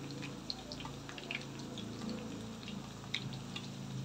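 Saba bananas frying in a pan of oil: soft, scattered crackling and popping over a steady low hum.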